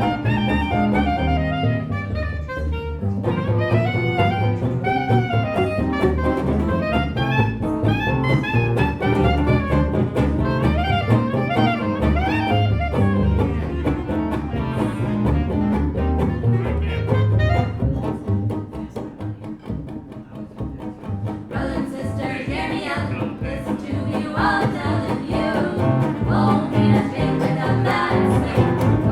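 Live jazz band playing, with a bass carrying the low end. About two-thirds through, the music drops quieter for a moment, then comes back brighter.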